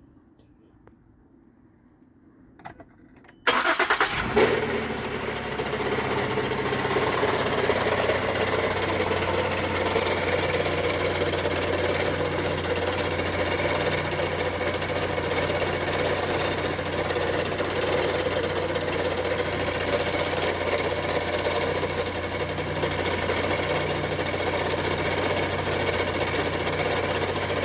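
A car engine starts suddenly about three and a half seconds in, after a couple of faint clicks, then keeps running steadily.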